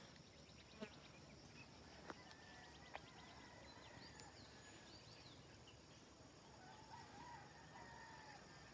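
Near silence: faint rural ambience with a distant rooster crowing and a few small bird chirps, plus a couple of soft clicks in the first few seconds.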